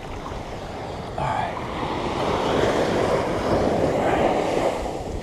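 Surf washing onto a sandy beach, swelling about a second in and easing off near the end, with wind on the microphone.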